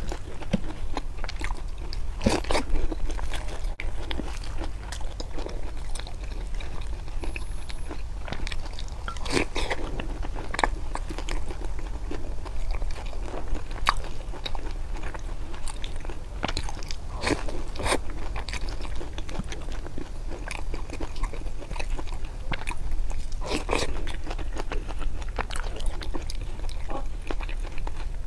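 A person eating close to the microphone: wet chewing with short crunchy bites, louder clusters of crunching coming every several seconds.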